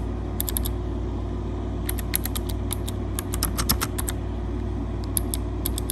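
Typing on a Razer Ornata Chroma keyboard's mecha-membrane keys: quick runs of clicky keystrokes with short pauses between them. A steady low hum runs underneath.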